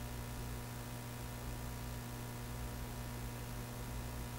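Faint steady electrical hum with a soft, even hiss behind it: room tone.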